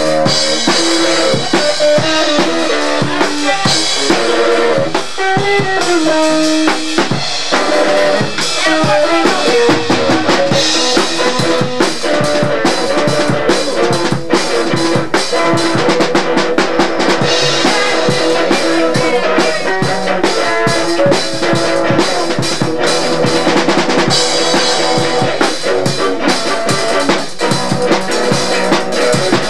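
A drum kit being played along with a pitched instrument carrying a melodic line whose notes bend and slide, in an unbroken stretch of live playing.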